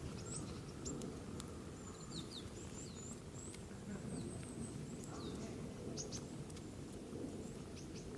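Small birds chirping: short, high calls scattered throughout, over a steady low rumble of background noise, with a few faint clicks.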